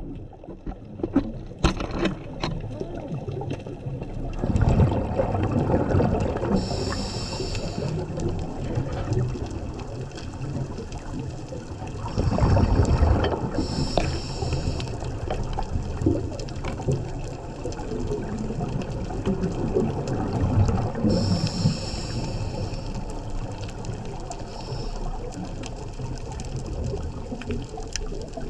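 Scuba diver's regulator breathing, heard underwater: three breath cycles about seven seconds apart, each a rush of rumbling, gurgling exhaled bubbles followed by a high hiss of inhalation. A few sharp clicks near the start.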